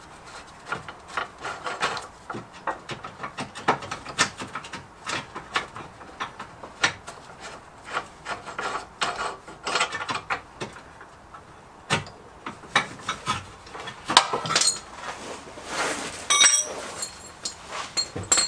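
Hand tools working on metal car suspension parts: a run of short, irregular scraping and clicking strokes, with a ringing metallic clink near the end.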